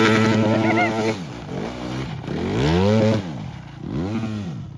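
Go-kart engine running at high revs, then dropping off about a second in and revving up and back down twice.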